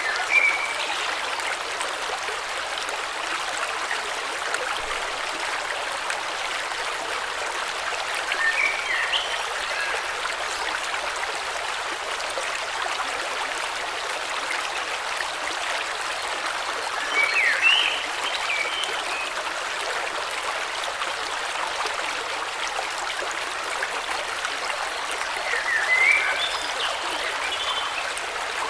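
Steady rush of a flowing river, with a bird calling a short burst of chirps four times, about every eight or nine seconds.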